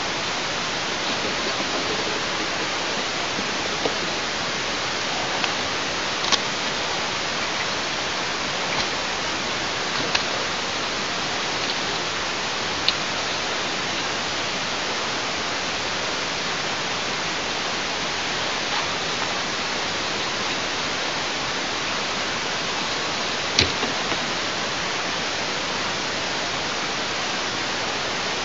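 Steady, even hiss on an outdoor nest-camera microphone, broken by a few brief sharp clicks and snaps scattered through, the strongest about a third of the way in and again near the end.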